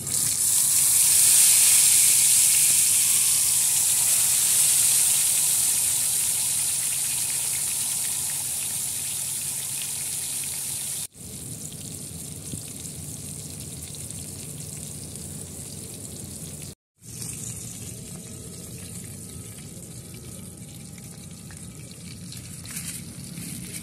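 Masala-marinated fish laid onto a hot flat griddle pan (tawa), sizzling loudly at once as it hits the pan and then slowly dying down. After a break near the middle, a quieter steady sizzle of the fish frying.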